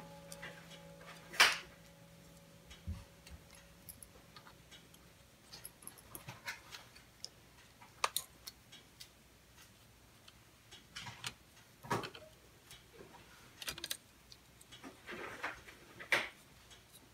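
Scattered light clicks and taps of small screwdrivers and loose metal and plastic parts against an opened MacBook Pro, as its cooling fan is unscrewed and lifted out. The loudest is a sharp click about a second and a half in.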